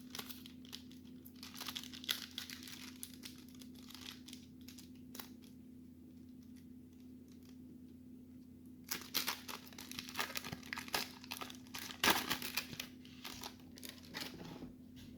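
Trading card pack wrapper being torn open and crinkled by hand, in bursts around two seconds in and again from about nine seconds on, over a faint steady hum.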